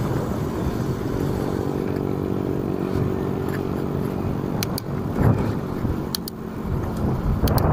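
A motor vehicle's engine hums at a steady pitch for the first few seconds and then fades, over a low rumble, with a few sharp clicks in the second half.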